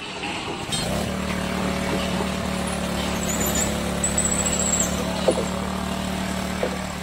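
An engine running steadily at constant speed, starting abruptly about a second in, with a couple of light knocks near the end.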